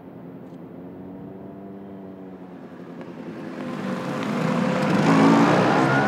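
Motor scooter engines approaching and passing, a steady engine note that grows louder over the second half and peaks near the end, its pitch bending as they go by.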